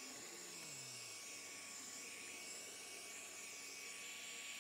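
Heat gun running steadily, a faint whir of its fan and blowing hot air, played over wet epoxy resin to pop air bubbles in the coat.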